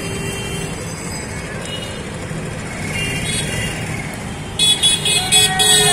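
Steady street traffic noise. Near the end, a run of loud, rapid sharp sounds with a steady tone running through them.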